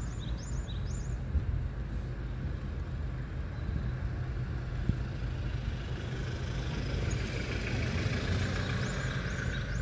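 Steady low vehicle hum, swelling slightly a few seconds before the end. A few short, high chirps come in quick succession right at the start, and again near the end.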